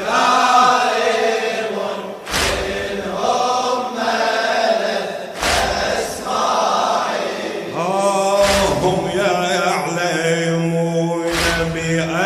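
Chanted Shia lament (latmiyya), drawn-out melodic voice lines over a deep, heavy beat that falls about every three seconds.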